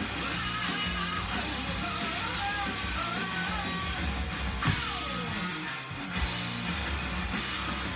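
Rock music with guitar playing from a vinyl record.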